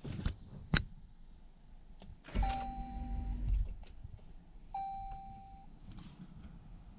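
Two clicks, then two electronic chime beeps of the same pitch about two seconds apart, each just under a second long; a thud and low rumble come with the first.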